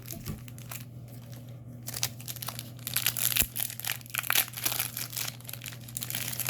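Crinkling and crackling of trading card booster pack wrappers being handled and torn open, with cards shuffled in the hands; the crackling grows busier about two seconds in.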